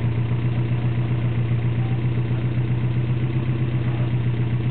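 Toyota pickup rock crawler's engine idling steadily, with no revving, as the truck sits perched on the boulders.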